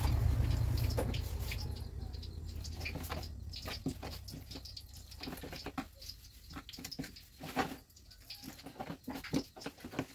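A hand mixing and kneading food in a plastic bowl: irregular soft squishes and light clicks and taps against the bowl. A low rumble fades out over the first couple of seconds.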